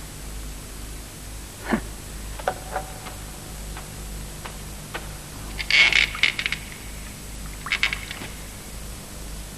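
Scattered clinks and knocks of hard objects being handled. There is a burst of rapid clinking about six seconds in and a shorter one near eight seconds, over a steady low hum.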